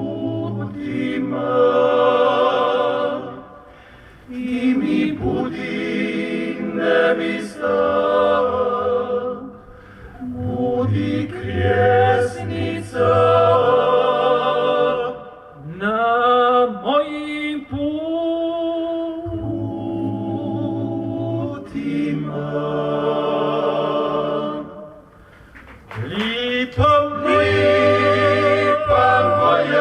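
Croatian male klapa ensemble singing in close multi-part harmony, with sustained bass notes under the upper voices. The singing comes in long phrases, with short breaks about four, ten and twenty-five seconds in.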